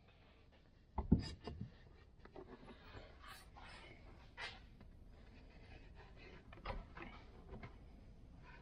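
Boards being handled during glue-up: a few sharp knocks about a second in, then faint scattered clicks and rubbing.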